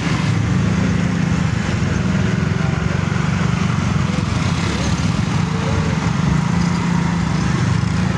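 Small motor scooter engines idling close by, a steady low drone.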